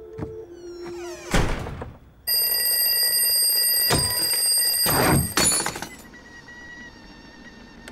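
Alarm clock ringing loudly and steadily for about three seconds, stopping about five and a half seconds in as a clawed paw comes down on it. A loud whoosh comes just before the ringing starts.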